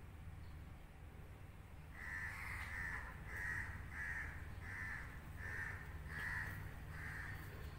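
A bird's harsh, crow-like calls repeated over and over, about eight calls spaced a little under a second apart, starting about two seconds in.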